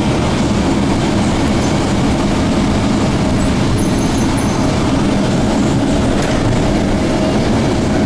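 Steady loud rumble of a city bus in motion, heard from inside the cabin: engine and road noise, with a faint steady whine joining about halfway through.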